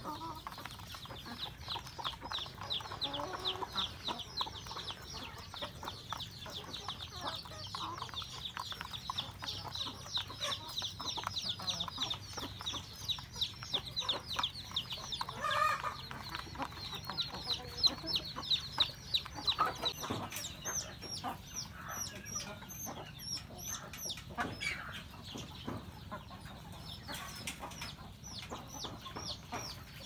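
Chickens and roosters clucking while they peck grain from a trough, with a fast run of high ticking through the first two-thirds or so and scattered sharper chirps and knocks after that.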